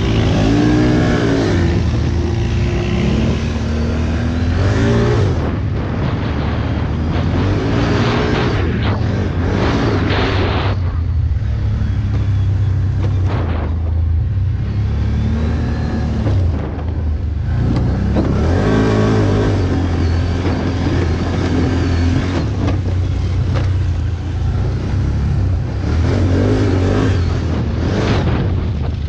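ATV engine running with repeated revving, the pitch rising and falling several times over a steady low drone.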